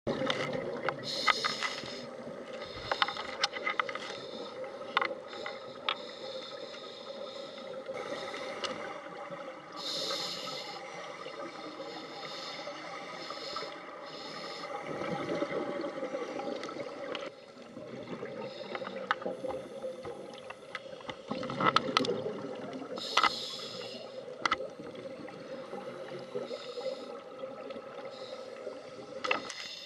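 Underwater sound picked up by a scuba diver's camera: a steady murmur of water and bubbles, with a hissing burst every few seconds from the diver's regulator breaths and scattered sharp clicks.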